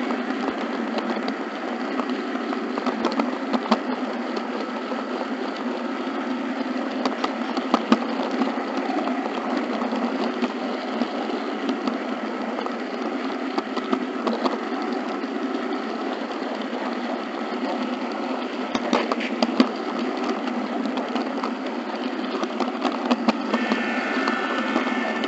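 HO scale model train running along the track, heard from the car the camera rides on: a steady whir of the small motor and gears with scattered clicks as the wheels cross rail joints and turnouts. Near the end a chord of steady tones starts up over the running noise.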